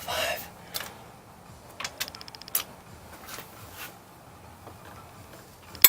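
Ratchet wrench clicking in a quick run about two seconds in, with scattered single clicks and knocks around it and a sharp clack at the very end, as cylinder head bolts are loosened a small part of a turn at a time in sequence.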